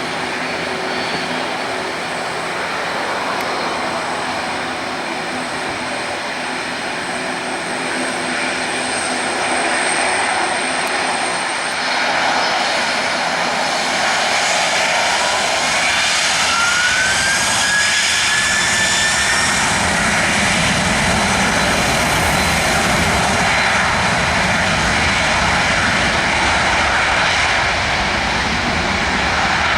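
Boeing 767-300ER jet engines running with a steady roar. Partway through, a whine rises steadily in pitch as the engines spool up, and a deeper rumble fills in and grows a little louder afterward.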